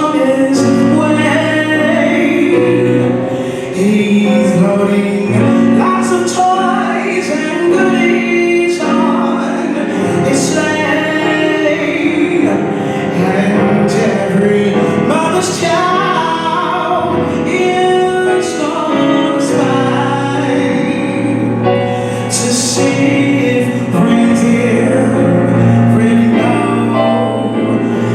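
Live band accompanying a singer in a slow, jazzy arrangement of a Christmas song, with sustained chords, a walking bass line and a voice over the top.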